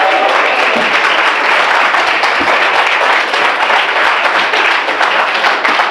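Audience in a lecture room applauding: dense, steady clapping from many hands.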